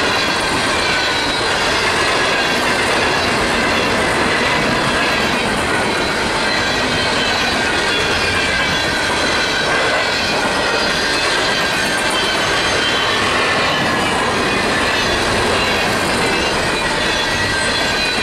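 Empty freight coal cars rolling past, their steel wheels running on the rail with a steady squeal of several wavering high tones over the wheel noise.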